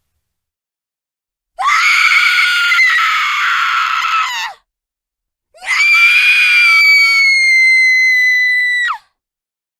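Two long, high-pitched screams from a girl in terror, horror-film sound effects, each about three seconds long with a pause between. The second holds one piercing pitch, sags slowly and drops off sharply at the end.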